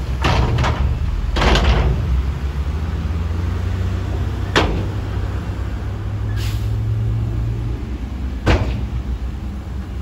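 SHACMAN dump truck's diesel engine running under a rattling rush of stone sliding out of the tipped bed in the first two seconds. Then come two sharp metal bangs, about halfway and near the end, as the emptied bed is lowered and the truck pulls away.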